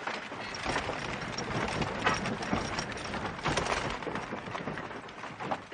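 A horse's hooves beating on a dirt street as the horse moves off at a brisk pace, a little fainter near the end.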